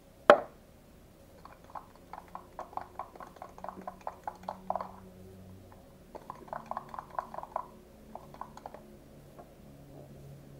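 A sharp knock near the start, then quick runs of light clicking, several clicks a second, as a spoon stirs a thick mix of dish soap and salt in a small cup and taps against its sides.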